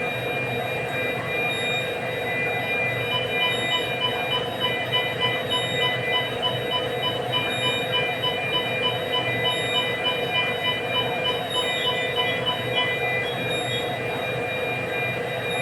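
Hospital equipment alarm beeping rapidly and evenly, starting about three seconds in and stopping near the end, over a constant electrical hum and steady high whine.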